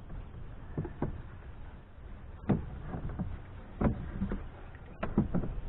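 Plastic air cleaner lid and its rubber breather hose being worked back into place on the truck's engine: a run of dull knocks and clunks, irregular and a second or so apart, with a couple of louder ones near the middle and end.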